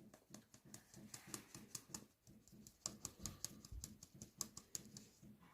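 Faint, irregular light ticks, several a second: a kitchen sieve being shaken and tapped while flour is sifted.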